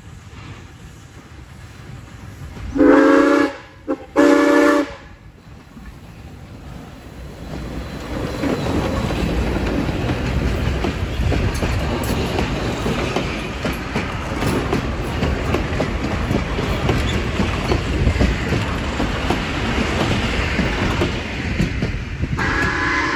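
Steam whistle of the Rx-class steam locomotive Rx224 sounding two short blasts, then the locomotive and its wooden carriages running past close by: a loud, steady noise of wheels on the rails. Near the end the whistle sounds again in a longer blast.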